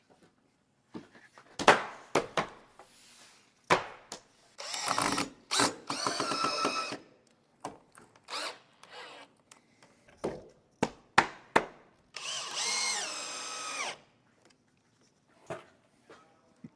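A cordless drill-driver drives screws into the cabin's wooden panels in two runs of about two seconds each, its whine dropping in pitch as each screw tightens. Sharp knocks of a hammer tapping a wooden block against the panels come before and between the runs.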